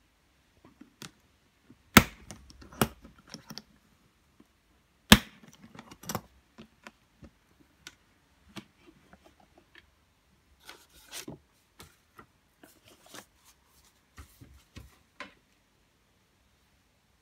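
DeWALT plastic tool case being opened and unpacked: two sharp plastic snaps about three seconds apart as the latches and lid are released, then lighter knocks and handling of the contents, with short crinkles of plastic wrapping later on.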